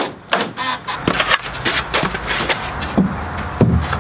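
Cordless drill driving screws into pine wall boards in several short runs, mixed with knocks of the boards being handled.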